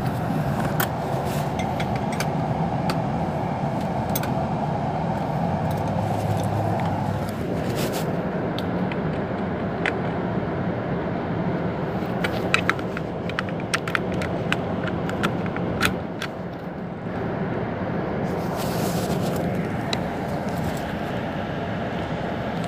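Isuzu Turquoise midibus's diesel engine idling steadily while the bus stands still. Scattered light clicks and ticks come in over it from about a third of the way in to about two-thirds through.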